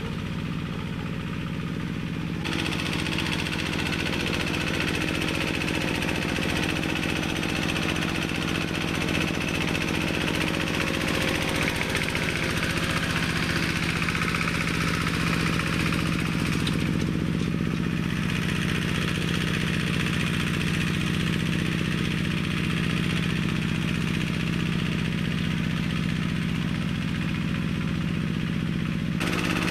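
Engine of a homemade four-wheel-drive minitractor built from a walk-behind tractor, running steadily as it pulls cultivator tines across the field. The sound grows louder and brighter about two seconds in and eases back near the end.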